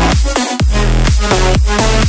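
Electronic dance music with a fast, steady kick-drum beat.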